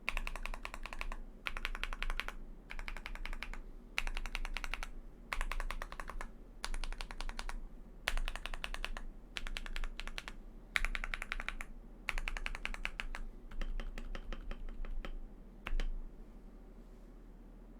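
Mechanical keyboard typing on factory-lubed Akko V3 Lavender Purple Pro tactile switches in an aluminium-plated keyboard: quick runs of keystrokes about a second long with short pauses between them. The typing stops near the end.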